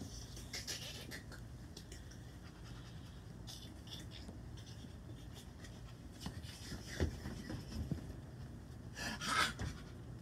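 Small puppies scuffling about on a wooden deck, with light clicks, knocks and footsteps under a steady low hum. Near the end comes one short, loud, high-pitched sound.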